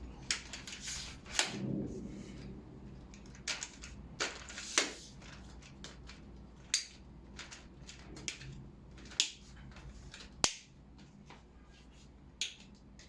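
Handling clicks and knocks from a tripod's legs and locks as its height is adjusted: a dozen or so sharp, uneven clicks, the sharpest about ten and a half seconds in.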